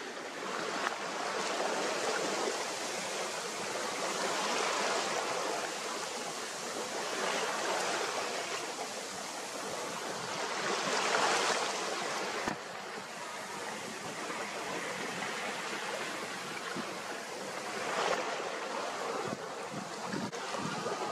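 Water rushing and splashing along the hull of a Catalina 270 sailboat under way, swelling and easing with the waves, loudest a little past halfway.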